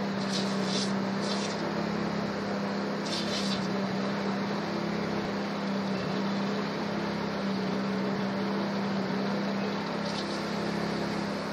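Motor-driven pesticide sprayer pump running steadily with an even hum, feeding the spray hose. A few brief high hisses come and go over it.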